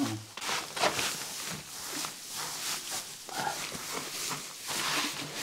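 Dry straw rustling and crackling as it is poured from a sack and pressed by hand into tyre nests, in a string of irregular scrapes and crunches.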